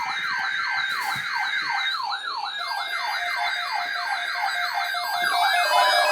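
Electronic siren sounding in fast, repeated falling sweeps, about three a second. A steady tone joins a few seconds in, and the sound thickens and grows louder near the end.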